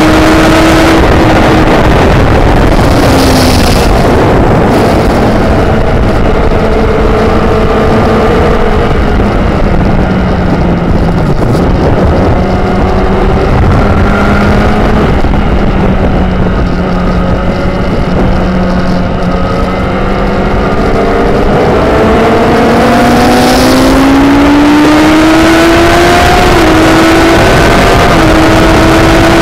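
Motorcycle engine heard from on board at track speed over heavy wind rush. The revs drop a couple of seconds in as the rider slows, hold lower and steady through the middle, then climb in several rising sweeps broken by brief dips as the rider changes up through the gears near the end.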